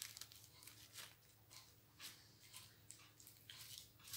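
Near silence with faint, scattered crinkles and clicks of small plastic zip-lock bags of diamond-painting rhinestones being handled and set down, over a low room hum.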